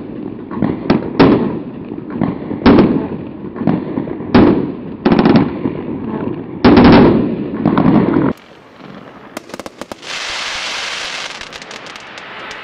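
Pyrostar Fantasia firework battery firing: a series of bangs with low rumble, about one every second, stopping abruptly about 8 seconds in. A few sharp crackles and a steady hiss follow.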